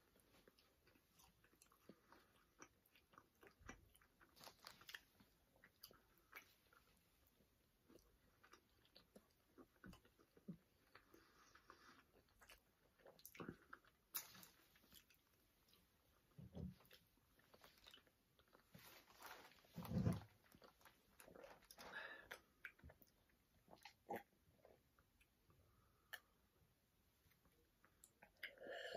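Faint chewing and biting of soft glazed donuts, with many small mouth clicks and smacks scattered throughout and a few louder soft knocks in the second half.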